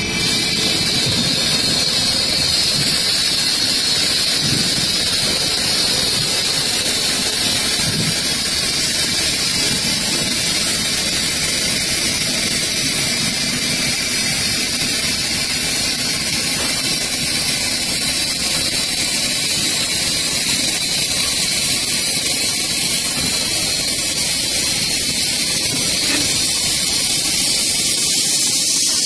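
Multi-spindle CNC wood turning lathe running, its cutters shaving several spinning wood blanks at once: a loud, steady, high hiss of cutting with no let-up.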